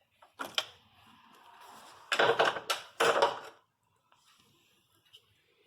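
Hand tool working loose the lower hold-down nut of an ignition coil in the engine bay: a click, then two loud bursts of metallic rattling and scraping, followed by faint ticks.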